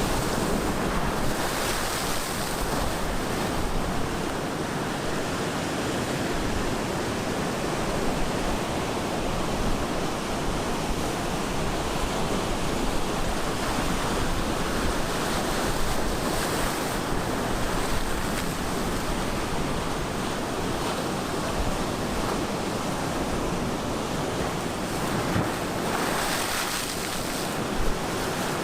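Ocean surf breaking and washing continuously, a steady rushing wash with a few brighter surges as waves break, with some wind buffeting on the microphone.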